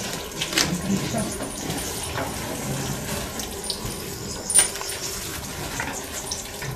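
Cowshed noises: tethered cattle shifting at a metal stall rail, a steady rustling haze with scattered clinks and knocks, the sharpest about four and a half seconds in.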